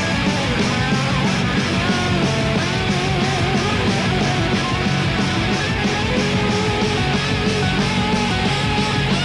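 Hardcore punk rock: distorted electric guitars over fast, steady drums.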